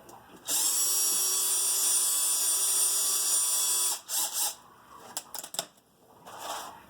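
Power drill-driver running at a steady speed for about three and a half seconds, then a short second burst. A few sharp clicks follow.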